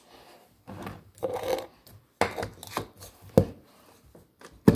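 Kitchen handling noises while smoothie ingredients and containers are moved about: a few scattered rubs and clatters, with a sharp knock about three and a half seconds in.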